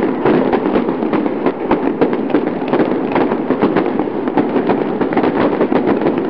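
Crackling intro sound effect: a dense run of many small, quick cracks, set to a shattering-wall animation. It cuts off suddenly at the end.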